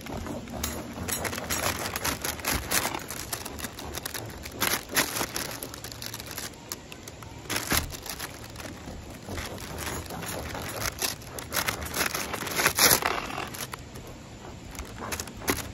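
A knife sawing through a crusty sourdough loaf in repeated strokes, the crust crackling and the plastic bread bag under it crinkling.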